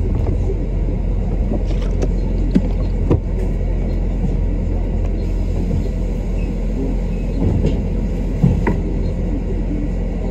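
Bus engine running, a steady low rumble heard from inside the bus, with a few light knocks or rattles.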